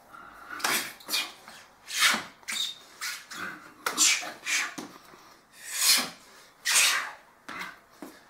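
A man's sharp, forceful breaths, about nine short huffs at an irregular pace, timed with fast martial-arts strikes.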